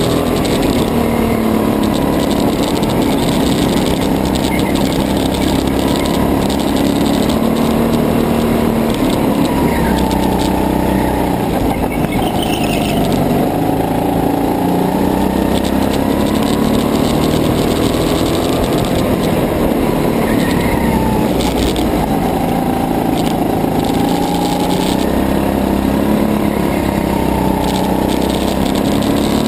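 Go-kart engine running at racing speed, its pitch rising and falling as the kart accelerates and lifts off through the corners. It is heard from a camera mounted on the kart's fairing, with heavy vibration in the sound.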